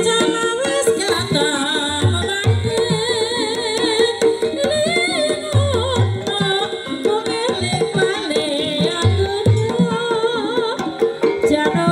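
Live Banyumasan gamelan accompaniment for an ebeg hobby-horse dance: kendang hand-drum strokes in a driving pattern under a singing voice, with a steady ringing gamelan tone beneath.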